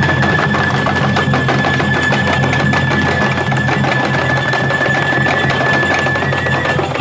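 Japanese festival procession music accompanying a troupe of lion dancers: one high note held steadily over fast clattering percussion and a low hum, the held note stopping shortly before the end.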